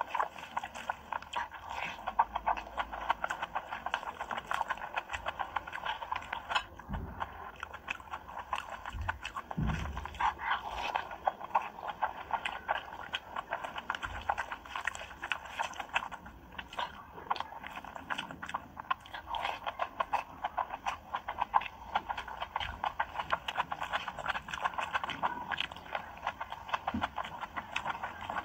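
A person chewing a mouthful of rice and curry, with wet mouth smacking heard as a dense run of small clicks and a few soft low thumps.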